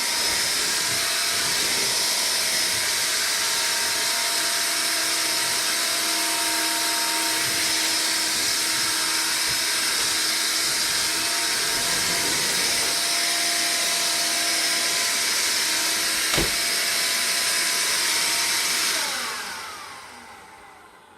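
Hoover Air Cordless Lift stick vacuum running steadily on normal suction with the brush roll off, picking up rice from the floor. A single sharp click comes about three-quarters of the way through. Near the end the motor is switched off and its whine falls away as it spins down.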